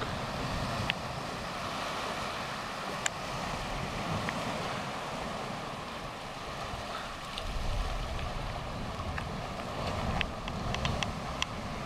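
Steady wash of sea surf in a small rocky cove, with gusts of wind buffeting the microphone, strongest a little past the middle. A few faint clicks sound over it.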